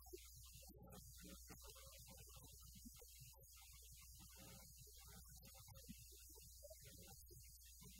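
Near silence: a steady low electrical hum, with faint, broken fragments above it.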